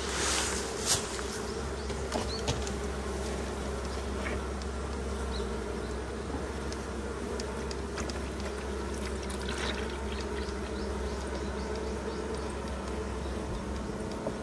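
Western honeybees buzzing steadily around an open hive, a colony stirred up by smoke and being fed. A sharp sound stands out just under a second in.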